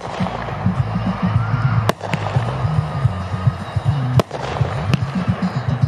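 Brothers Matrix Pyro 350-gram multi-shot fireworks cake firing: sharp bangs from its shots about two seconds apart, over background music.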